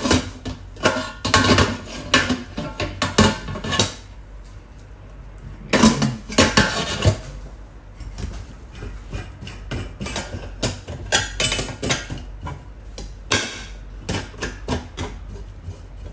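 Metal clattering and knocking of a pressure cooker's lid and fittings being handled, in several bursts of sharp clinks and taps with short pauses between.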